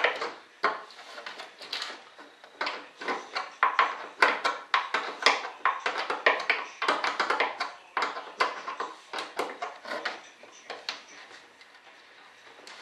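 Irregular clicks and light metal knocks of a bolt and small hand tool being worked into the landing gear mount inside an RC jet's fuselage, thinning out about eleven seconds in.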